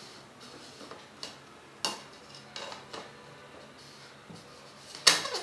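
Sharp hard-plastic clicks and knocks from a large telephoto lens and its hood being handled and turned, a few scattered taps with the loudest near the end.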